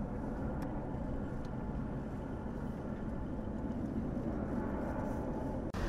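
Steady low outdoor rumble of traffic- or engine-like background noise, briefly cutting out near the end.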